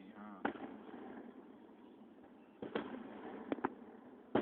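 About five short, sharp bangs over a low steady background hiss: one soon after the start, then a cluster of three or four in the second half, two of them close together.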